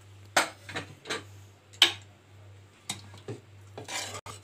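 A metal ladle stirring freshly pressure-cooked kidney beans in an open pressure cooker, knocking and scraping against the pot's side. There are several sharp clinks, the loudest a little under two seconds in, and a short swishing stir near the end.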